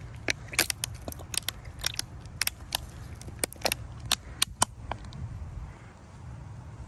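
About a dozen sharp, irregular clicks and crunches over the first four to five seconds, then they stop, over a low steady rumble.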